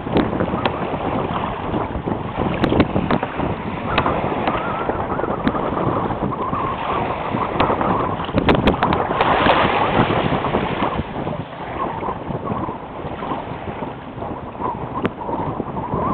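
Wind buffeting the microphone over choppy water, with small waves slapping and splashing against a kayak's hull.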